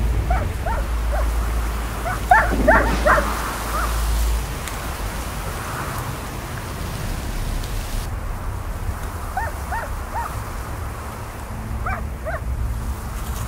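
German shepherd giving short high-pitched yelps and whines in several bursts, the loudest cluster a couple of seconds in, over steady rain. A low thunder rumble runs underneath and stops about four seconds in.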